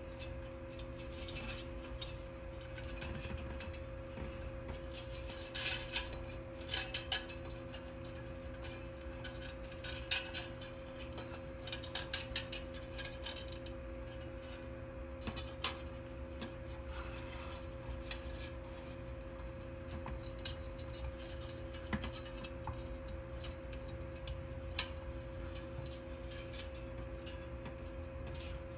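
Small metal parts clinking and tapping against each other now and then, with a cluster of clinks about six to seven seconds in and another around ten to twelve seconds. Under them runs a steady low hum.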